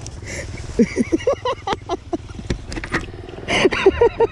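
A motorcycle engine running low, with several people calling out over it, loudest near the end.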